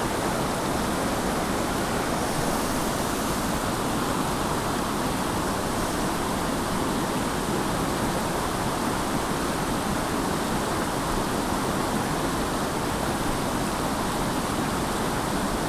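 Steady rush of a small mountain creek's flowing water, an even noise that doesn't change.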